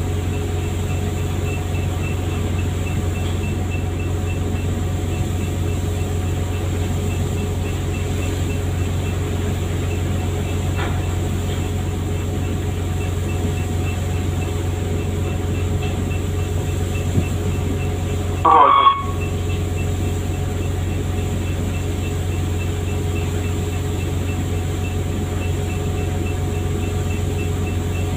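Fishing boat's engine running at a steady drone, with a brief louder sound about two-thirds of the way through.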